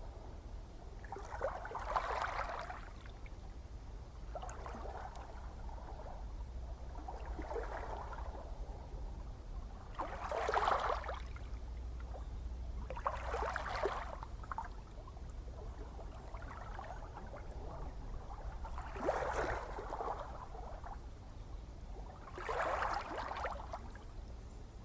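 Gentle ocean waves lapping and splashing, one soft wash of water every two to three seconds over a steady low rumble of the sea.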